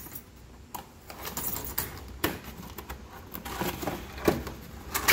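A few scattered light knocks and scrapes of cardboard packaging being handled, over a low rustle.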